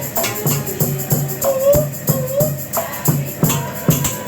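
Music with a fast, steady percussive beat and a wavering melodic voice.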